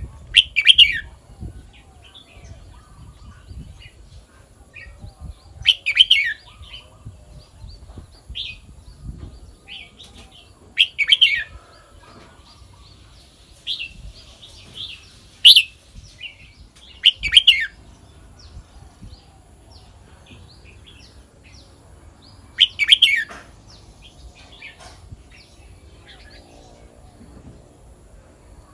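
Red-whiskered bulbul singing: short, loud, rapid phrases repeated about every five or six seconds, with softer chirps between them.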